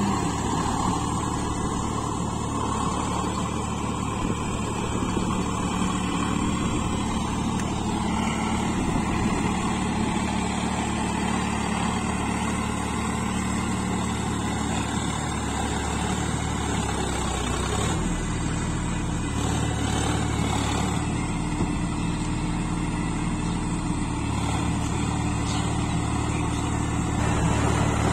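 Sonalika 50 RX Sikandar tractor's diesel engine running steadily as it pulls a Shaktiman rotavator through wet paddy mud. Its note dips briefly about two-thirds of the way through, then steadies again.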